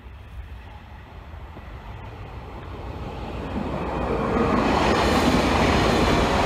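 Passing train: an HLB VT2E diesel railcar approaching along the track, growing louder from about halfway in and loudest near the end as it runs close past, its wheels clicking over the rails.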